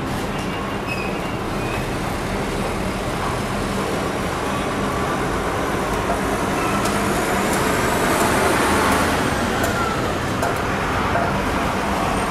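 AgustaWestland AW139 helicopter air-taxiing low, heard from a distance: a steady rush of turbine and rotor noise with a low hum and a faint whine that rises and falls, loudest about eight to nine seconds in.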